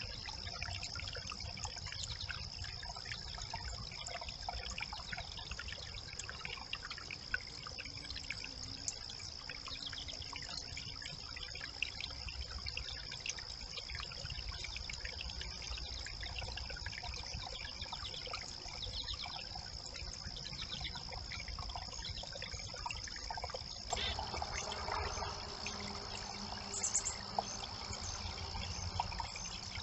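Brook water trickling over and through a beaver dam of sticks, as a steady noise with small ticks and splashes, under a thin steady high-pitched whine. The water sounds somewhat fuller after a change about 24 seconds in.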